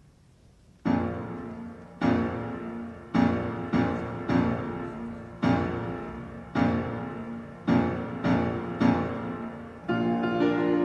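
Background piano music: slow chords struck about once a second, each fading away before the next, starting about a second in.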